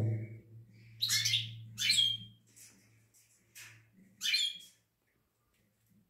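Small cage finches calling in an aviary: short high chirps, with three clear calls about one, two and four seconds in.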